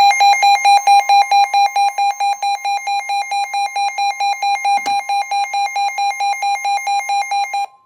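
Electronic emergency alert tone opening a Severe Thunderstorm Warning: rapid, even beeping at about five beeps a second over a steady high tone. The beeping cuts off just before the end, with a single click about five seconds in.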